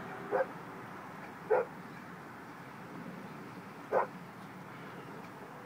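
A dog barking three short, single barks, spaced apart: one just after the start, one about a second later, and a last one about four seconds in.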